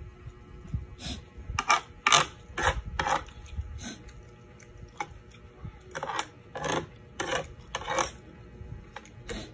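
Close-miked eating sounds: a run of short, sharp wet smacks and clicks, one or two a second, mixed with the clink of a spoon against a glass bowl of fish soup.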